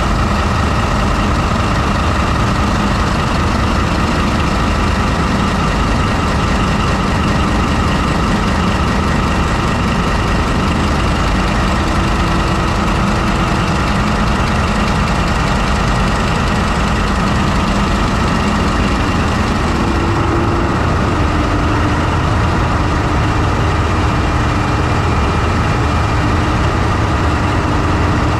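MTU 20V4000 twenty-cylinder diesel prime mover of a CRRC SDA1 locomotive running at a steady speed, heard close up inside the engine compartment: a loud, even rumble with a few steady whining tones over it.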